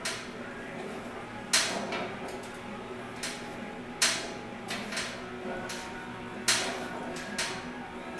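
Sharp knocks recurring about every two and a half seconds, with fainter knocks in between.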